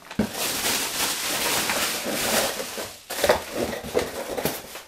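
Bubble wrap and a plastic bag crinkling and rustling as a boxed bench plane is unwrapped. The crinkling gives way to a few short knocks and rustles about three seconds in, as a cardboard box is handled on a wooden workbench.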